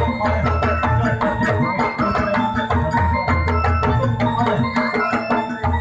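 Javanese gamelan-style jaranan music: mallet percussion playing quick runs of short pitched notes over steady drum beats.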